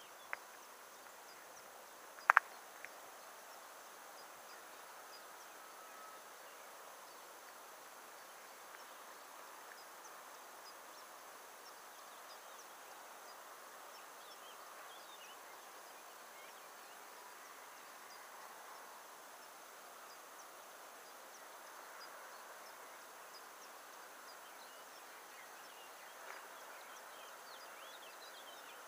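Quiet outdoor ambience: a faint steady background with scattered faint high chirping, and one sharp loud click about two seconds in.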